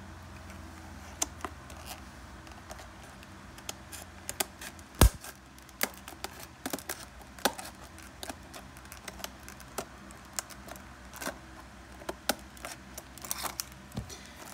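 Clear plastic clamshell package being handled and pried open: irregular plastic clicks and crackles, with one sharp snap about five seconds in.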